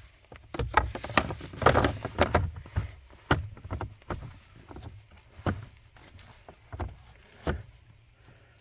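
Plastic clicks, scrapes and rustling as a pleated cabin air filter is pushed into its plastic housing behind the glove box: a busy run of handling noises in the first few seconds, then occasional taps.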